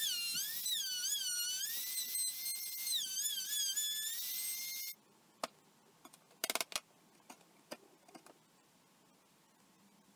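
Compact trim router running under load, a high whine that dips and recovers in pitch as the bit cuts the groove and frees again. It cuts off sharply about five seconds in. A few faint sharp clicks of chisel work in the groove's corners follow.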